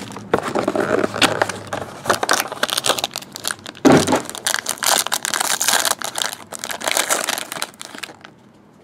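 Clear plastic shrink wrap being torn off and crumpled by hand, a dense run of crinkling and crackling with a single louder thump about four seconds in; the crinkling stops near the end.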